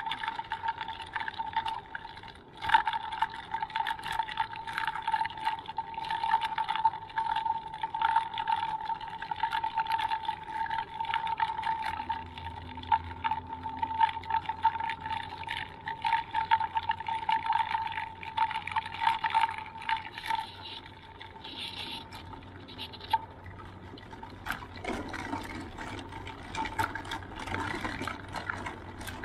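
Electric mobility scooter with solid tyres running over rough asphalt: a steady motor whine with constant rattles and knocks from the hard tyres. The whine stops about 20 seconds in, and a rougher rushing noise follows.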